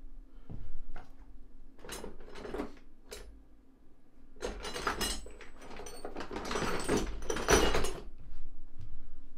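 Scattered knocks and scuffs of a person moving about, then, from about four and a half seconds in, close rustling of clothing and handling noise as he brushes against the recording device.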